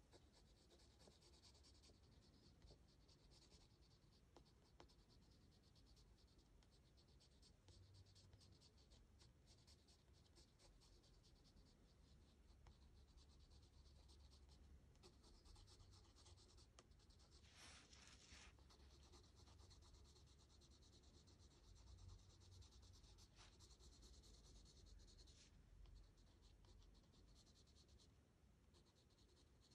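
Graphite pencil scratching on sketchbook paper in many short, quick shading strokes, faint, with one louder stretch of strokes a little past halfway.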